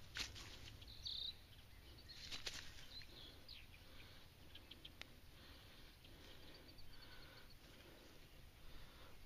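Near silence: faint rustling and handling clicks as a caught bass and a frog lure are handled in grass, with a short high chirp about a second in and a faint quick run of high ticks later.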